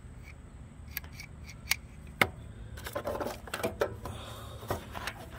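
Oil filter pliers clicking and scraping as their metal jaws are worked around the engine's spin-on oil filter: a few sharp clicks in the first half, then a spell of rattling scrapes.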